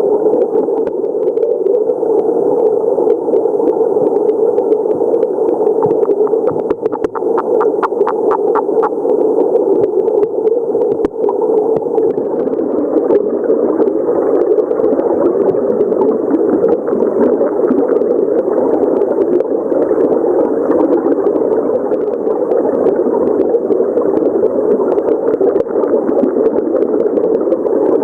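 Steady rushing stream water, with a Nagare stream frog (Rana sakuraii) calling over it and a run of quick clicking pulses about seven to nine seconds in. This repeated call is likely the frog's advertisement call.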